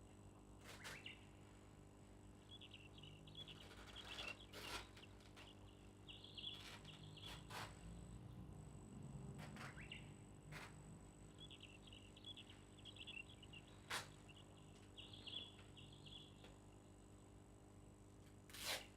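Near silence: faint background chirping of a small bird in short irregular bursts, with a few soft clicks scattered through.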